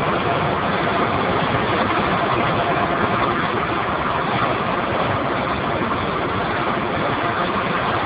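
Packaged steam boiler's burner and blower running, a loud steady noise with no change in pitch or level.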